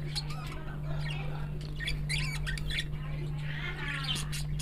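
A hand mixing dry flour and sugar in a steel bowl, with scratchy rustling strokes. Short squawking calls sound in the background over a steady low hum.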